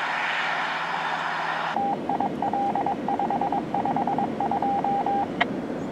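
A brush truck driving away, then after a cut a two-way radio sounding a string of short and long beeps at one pitch in a Morse-code-like pattern over a low rumble. A sharp click follows the beeps near the end.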